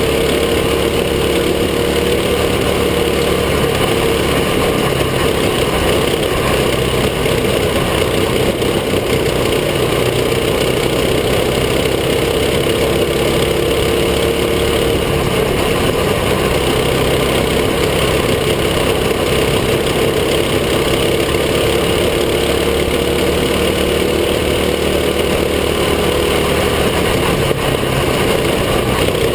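Mini sprint kart engine running continuously, heard close up from the cockpit; its note wavers gently with the throttle, dips briefly about halfway, then climbs again near the end.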